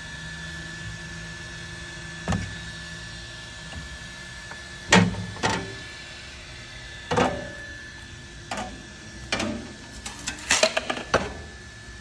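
Knocks and clacks of a flexible steel PEI build plate being pulled off a 3D printer's magnetic bed and handled, ending in a quick run of clicks as it is set down on a tile floor. Underneath runs a steady hum with a thin high whine.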